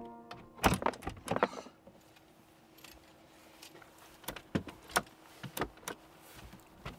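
Sharp clicks and knocks of hands working frozen water-pipe fittings at a campervan's back doors: a cluster about a second in, then single ones every half second or so, over a faint steady hum. Background music stops just at the start.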